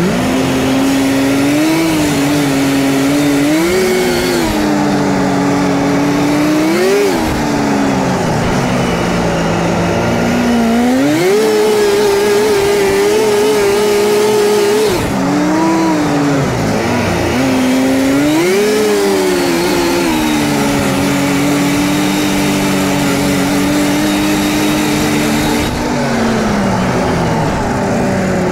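1979 Scorpion Whip TKX snowmobile's two-stroke engine running on the trail, its pitch rising and falling with the throttle. It revs up briefly several times and is held at a higher, steady pitch for a few seconds around the middle.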